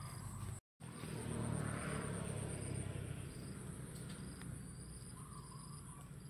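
Insects chirping steadily with a fine, rapid high pulsing over a low hum, the sound cutting out for an instant under a second in. Around two seconds in comes a louder rustle of handling.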